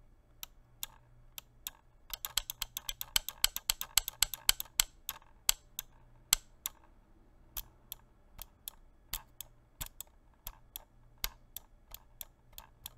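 Lofree Touch mechanical-switch mouse buttons being clicked over and over, a fast run of clicks about two seconds in, then slower, uneven clicks. The clicks sound rattly, with the switch springs audible: a cheap-feeling, noisy mechanism.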